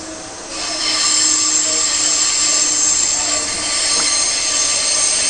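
Electric suburban train heard from inside the carriage: steel wheels squealing against the rails, a loud, high squeal of several tones at once that sets in about half a second in and holds steady.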